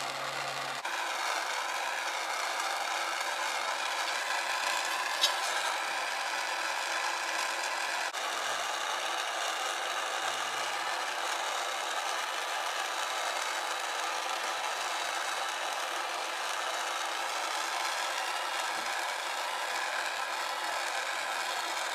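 Handheld gas torch flame hissing steadily as it heats a titanium exhaust head pipe to colour the metal. A single sharp tick about five seconds in.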